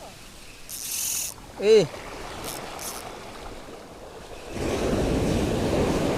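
Sea waves washing against a rocky shore, with a surge of surf about four and a half seconds in. A short vocal exclamation is heard a little under two seconds in.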